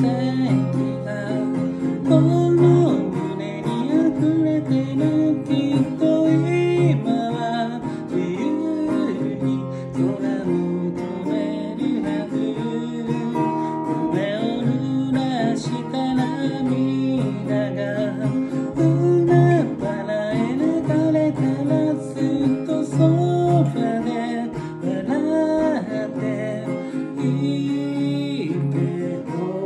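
Acoustic guitar strummed and plucked in a steady song, with a voice singing along over it.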